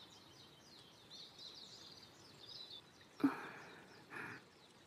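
Faint birdsong: many quick high chirps over a quiet outdoor background for the first few seconds. Two brief soft noises follow, a little after three seconds in and again about a second later.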